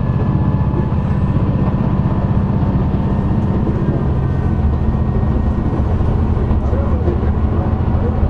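SKR310-class diesel railcar SKR311 running along the line, heard from the driver's cab: a steady diesel engine drone over the rumble of the wheels on the rails, the engine note shifting slightly about four seconds in.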